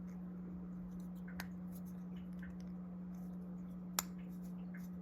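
Faint, sparse clicks of small folding-knife parts being handled and fitted together during reassembly, with one sharper click about four seconds in, over a steady low hum.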